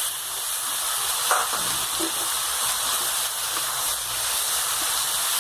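Tomatoes sizzling in hot oil with fried onions in a kadhai, a steady loud hiss, with a brief knock about a second in.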